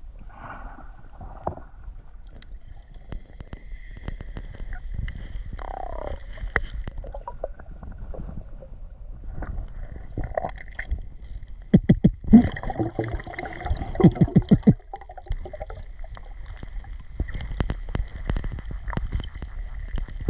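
Muffled underwater sound: a low rumble with gurgling water and scattered clicks, and a run of loud sharp clicks and knocks a little past the middle.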